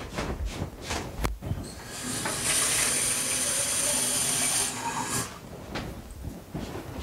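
A tap running, water filling a container for about three seconds from about two seconds in, after a few light knocks of handling.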